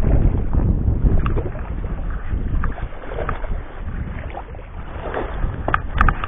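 Wind buffeting the microphone: a steady low rumble, with a few sharp clicks near the end.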